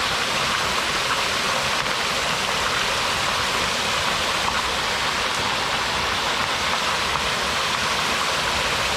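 Small waterfall heard up close: a steady, even rush of water falling over rock.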